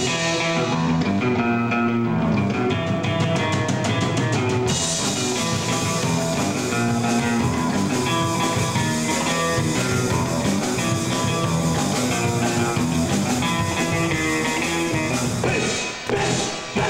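Live rock band playing: electric guitar, bass guitar and drum kit together, with a brief drop in level near the end.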